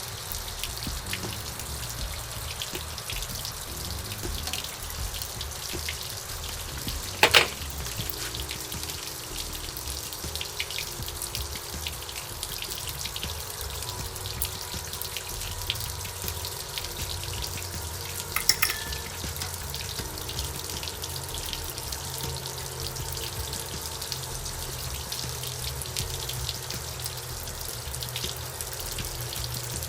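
Steady hiss with two sharp metallic clinks, one about a quarter of the way in and another just past the middle, from a 3/8-drive socket and ratchet being handled while the outboard's ignition coil packs are unbolted.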